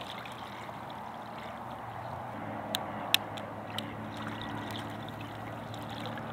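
Steady trickling and lapping of river water, with three sharp clicks about halfway through and a faint low hum underneath from then on.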